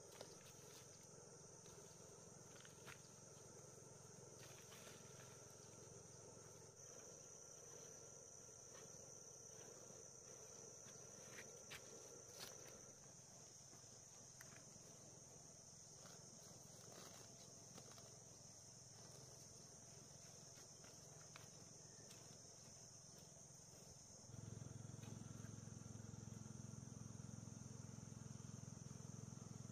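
Faint, steady chirring of insects, with a few light clicks and rustles; a low rumble comes in near the end.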